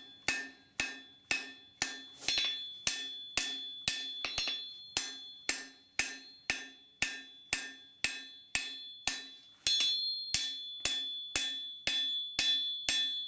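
Hammer blows on hot knife steel against an anvil, a steady rhythm of about two strikes a second, each strike ringing briefly.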